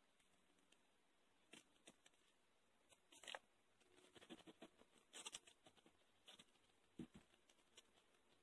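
Faint, scattered rustles and light taps of fingers handling and pressing ribbon loops together on a tabletop, the loudest rustle about three seconds in and a soft knock near the end.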